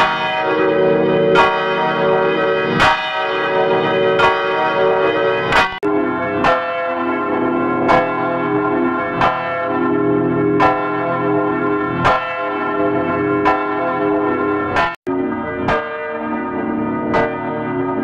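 A church bell tolling, struck about every second and a half, each stroke ringing on into the next. The sound cuts out for a split second about fifteen seconds in, then the strokes come a little closer together.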